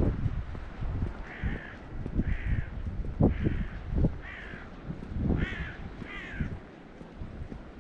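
A large bird giving a series of about six harsh, cawing calls, roughly one a second, starting about a second in. Underneath are louder low thuds and rumble, fitting footsteps and wind on the microphone.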